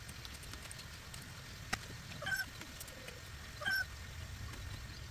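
Long-handled garden hoe working loose soil to level a raised bed, with faint scraping and a few sharp clicks as the blade strikes. Over it an animal gives two short, clear calls, about two and a third and three and two-thirds seconds in, the louder sounds here.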